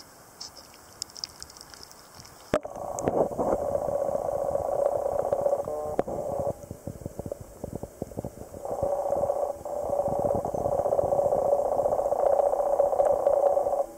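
A camera plunging into shallow pond water about two and a half seconds in with a sharp knock, then the muffled sound of its microphone underwater: a steady low hum with faint crackling. The hum fades for about two seconds in the middle and comes back.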